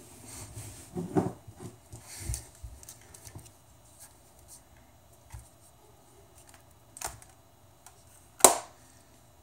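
Handling noise from fingers fumbling with the recording device right at the microphone: rustling and rubbing about a second in and again around two seconds, a few soft taps, then one sharp knock near the end, the loudest sound.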